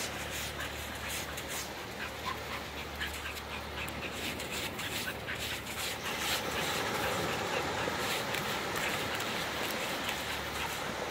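Small waves washing onto a flat sandy beach: a steady hiss that grows louder about six seconds in, scattered with clicks and a few short high squeaks.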